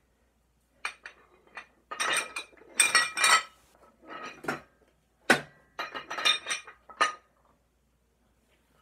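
Metal weight plates clinking and clanking against each other and a dumbbell handle as they are handled, in a run of sharp strikes with one harder knock about five seconds in; the clinking stops about a second before the end.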